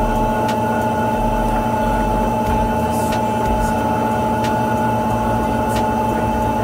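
Steady mechanical hum holding several constant tones, with a few faint clicks scattered through it.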